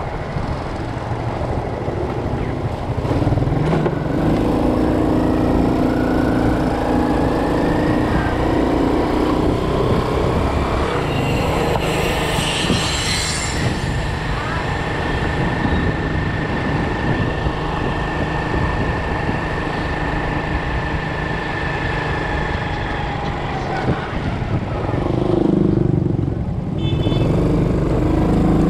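Motorbike ride in street traffic: the bike's engine running under wind noise, its note rising as it speeds up a few seconds in. It slows near the end as the bike pulls up.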